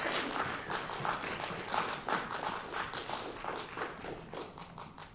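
Audience applauding, the clapping tapering off and stopping near the end.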